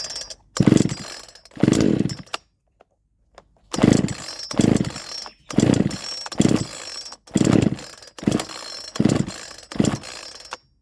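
Neotec NH841 two-stroke chainsaw, freshly ported, running on its first start after the rebuild. It is blipped up in repeated short revs, goes silent for about a second some two seconds in, then revs again in bursts until it cuts off suddenly at the end. The carburettor is not yet tuned.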